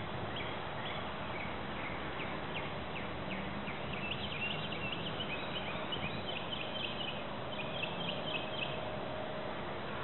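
A bird chirping in rapid series of short high notes, busiest in the middle, over a steady outdoor hiss.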